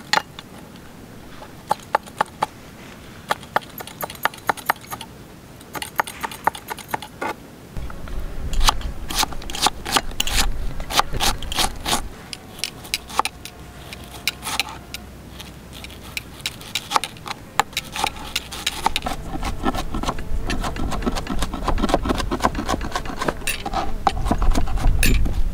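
Knife chopping red onion and green chillies on a plastic cutting board: quick runs of sharp taps as the blade strikes the board. A low rumble comes and goes from about eight seconds in.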